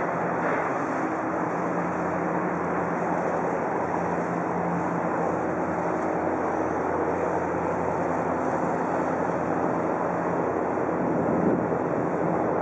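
Engine of a small harbour work boat running as it passes close by: a steady low hum over the rush of water from its wake.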